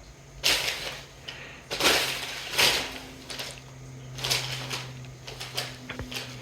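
Packaging rustling and scraping in several short bursts as cats play in and on it.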